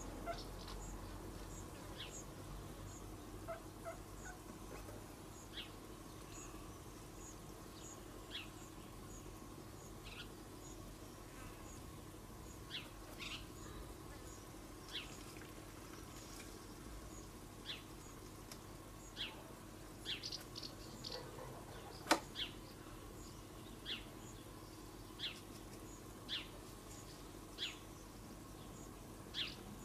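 Backyard ambience: a small bird gives short high chirps every second or two over a faint steady hum, with one sharp click about two-thirds of the way through.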